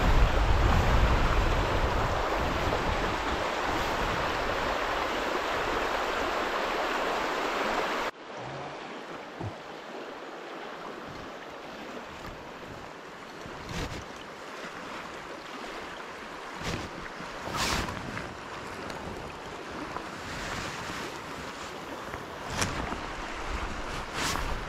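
Fast river water rushing over a stony riffle, with wind buffeting the microphone, cuts off sharply about eight seconds in. A quieter, smoother flow of river water follows, broken by a few brief sharp sounds.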